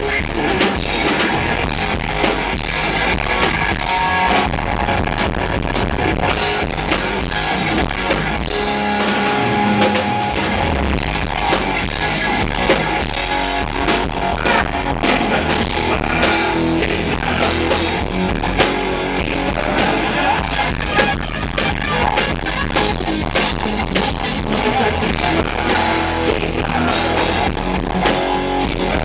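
Rock band playing live and loud: electric guitar through Marshall amps over a drum kit and keyboards. The low end is distorted because the recording was made close to the stage, and the kick drums overload the camera's microphone.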